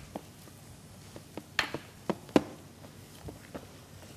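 Gloved hands kneading a yeast dough in a clear plastic mixing bowl: scattered soft taps and knocks against the bowl, with three sharper knocks around the middle.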